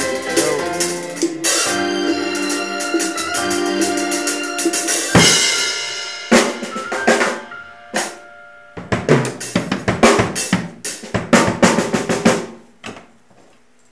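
Drum kit played hard: rapid snare, tom and bass drum strokes with cymbal crashes. The playing thins into scattered loud fills after about five seconds and stops near the end.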